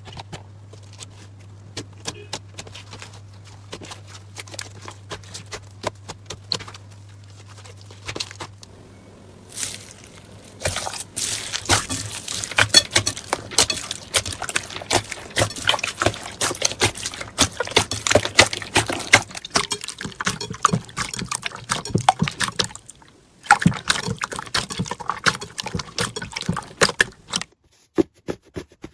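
Slime being squeezed and worked by hand, making wet, sticky clicks and pops. The clicks are sparse at first over a low hum, then come thick and fast in a dense crackle for most of the rest.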